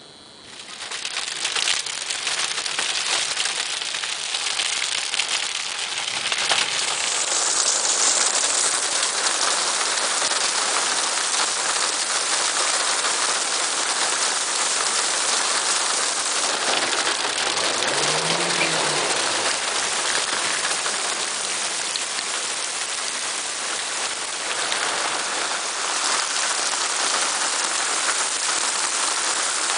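Torrential thunderstorm rain pouring down hard and steadily, beginning suddenly about a second in, with water rushing in a torrent over the road.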